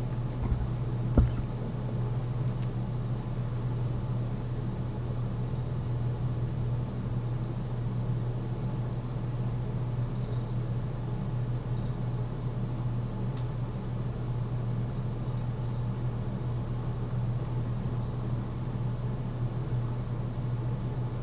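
Boat motor running steadily with a low, even hum, with two sharp knocks about half a second and just over a second in.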